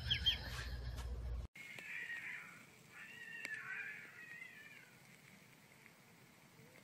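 Two cats fighting, yowling at each other in long, wavering, drawn-out calls that die away about five seconds in. A low rumble comes first, cut off about a second and a half in.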